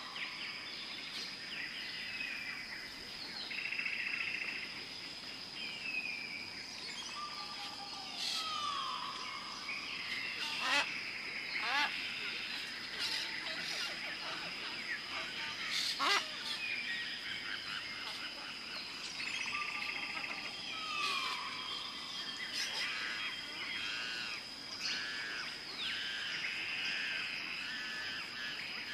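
Tropical rainforest ambience: many birds calling, chirping and whistling over a steady high insect drone. A falling whistled call comes back several times, and a couple of sharp clicks sound midway.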